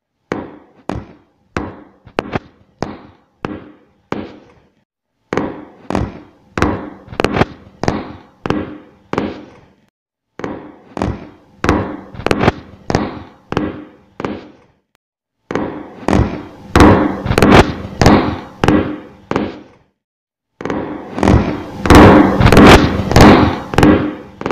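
A short run of about ten sharp, quickly fading hits, played five times with about a second of silence between. Each repeat is stacked from more copies of the same clip, doubling each time, so it grows denser and louder until the hits blur together.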